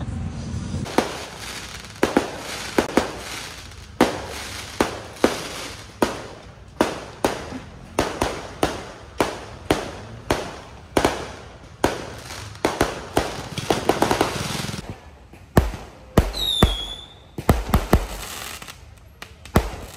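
A long irregular series of sharp bangs, roughly one or two a second, each ringing out briefly. A short falling whistle comes about sixteen seconds in.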